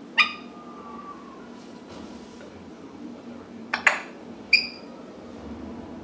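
African grey parrot making a few sharp clicking sounds and a short ringing ping: a click just after the start with a faint fading tone behind it, two quick clicks just before four seconds in, then a ping.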